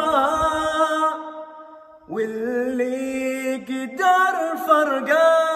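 A man singing long, drawn-out notes in an Arabic song. One melismatic phrase fades out about two seconds in, then a new held note starts, bends up slightly and carries into wavering runs.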